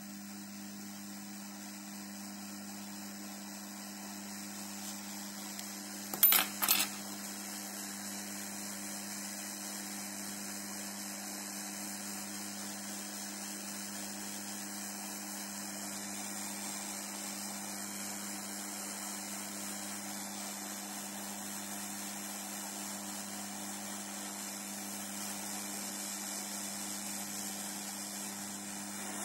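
Hot air rework station blowing onto the graphics card's VRM to desolder the burnt IR3553M MOSFET: a steady airflow hiss over a low hum. A quick cluster of sharp clicks comes about six seconds in, and the sound cuts off suddenly at the end.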